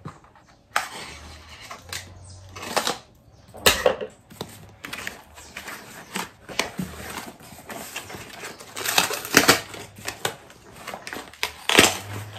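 A cardboard shipping box being handled and opened by hand: irregular rustling and scraping of cardboard and packing with sharp clicks and knocks, the loudest bursts in the second half.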